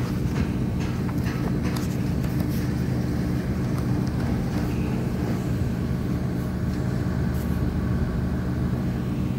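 Steady low hum of running chiller plant machinery, several steady tones held under a faint hiss. A few light rustles of the service manual's paper pages in the first two seconds.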